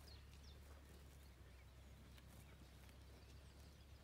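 Near silence: faint outdoor ambience with a steady low rumble and a few faint bird chirps.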